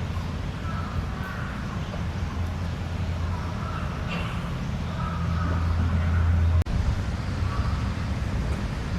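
Steady low background hum with a faint murmur over it, broken by a short sudden dropout about two-thirds of the way through.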